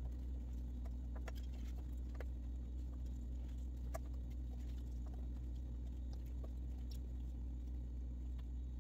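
Faint, scattered soft taps and clicks of apple slices being laid by hand onto a mat-lined freeze-dryer tray, over a steady low hum.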